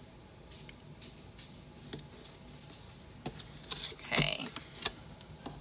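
Paper pages rustling and the metal coil of a spiral-bound Erin Condren Life Planner clicking as a page is turned over, in a short cluster of clicks and rustles loudest about four seconds in. Before it, a few faint taps from hands pressing stickers onto the page.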